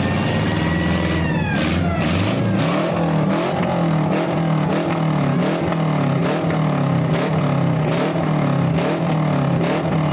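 Demolition derby car engines revving hard, their pitch rising and falling again and again. Over the engines comes a run of sharp bangs about twice a second, starting a second and a half in.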